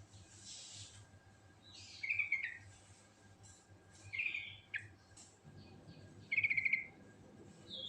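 Yellow-vented bulbul (trucukan) singing short, bubbly phrases of quick notes, about three bursts a couple of seconds apart, the last the loudest. A short hiss comes about half a second in.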